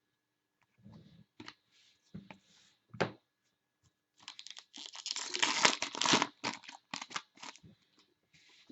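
A card pack wrapper being torn open and crinkled by hand, with cards shuffled and handled. A few short rustles and clicks come first, then a longer run of tearing and crinkling about halfway through, loudest in the middle.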